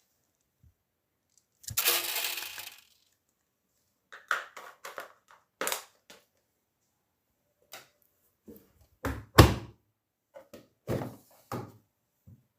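Daewoo DWD-FT1013 washing machine at the start of a Quick 30 wash: a brief rushing noise about two seconds in, then a run of irregular sharp clicks and knocks, some with a low thud.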